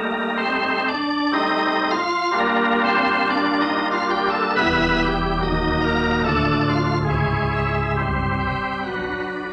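Organ music bridge marking a scene change in an old-time radio drama: sustained, slightly wavering organ chords changing every second or so, with a deep bass coming in about halfway and dropping out near the end.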